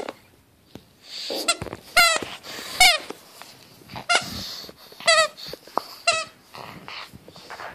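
A pug chewing a squeaky dog toy: about five warbling squeaks, roughly one a second, with soft scuffling between them.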